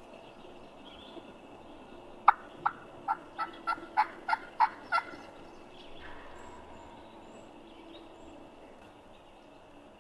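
Wild turkey calling: a run of about eight sharp, evenly spaced yelp-like notes, roughly three a second, lasting nearly three seconds.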